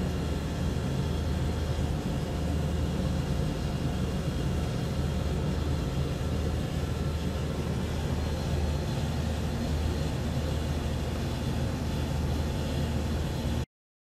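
Carrier CP-505HXC floor-standing air conditioner running: a steady mechanical hum with a strong low drone. It cuts off suddenly near the end.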